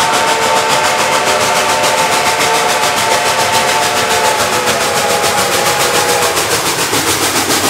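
Reading 2102, a 4-8-4 steam locomotive, blowing one long chord on its chime whistle that stops about six and a half seconds in. Under it runs the fast, even beat of the locomotive's exhaust as it works past.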